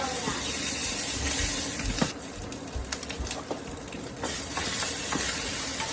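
Rice, onions and bell peppers sizzling in bacon grease in a pan. About two seconds in, the sizzle drops back for a couple of seconds while a spoon clicks and scrapes against the pan, stirring, then the steady sizzle returns.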